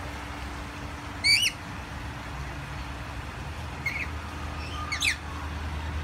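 Rainbow lorikeets giving short, shrill screeching calls, three in all, the loudest about a second in, over a low steady hum.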